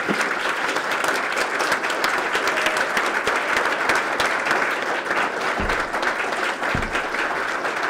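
A room of journalists applauding, many hands clapping steadily, with two low thumps about a second apart in the second half.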